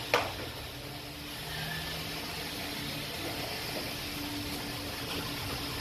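Steady hum and hiss of a self-serve car wash bay's pump and running water, with a short knock right at the start as the foam brush and hose are handled.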